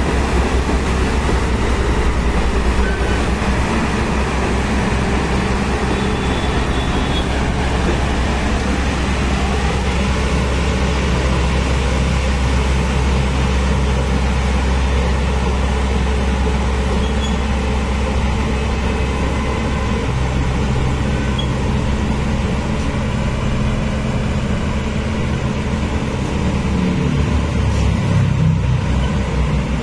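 Diesel engine of a JCB 215 LC tracked excavator running steadily under load as the machine travels and works its boom, with the engine note rising about a third of the way in.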